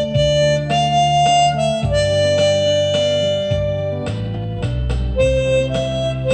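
Seydel Saxony chromatic harmonica playing a slow melody in held notes, over a backing accompaniment with low sustained bass notes.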